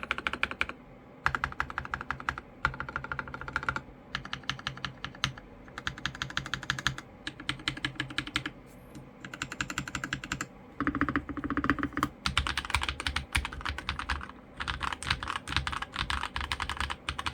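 Mechanical keyboard with lubed Akko Rose Red linear switches being typed on fast, in runs of rapid keystrokes broken by short pauses, turning into continuous typing over the last few seconds.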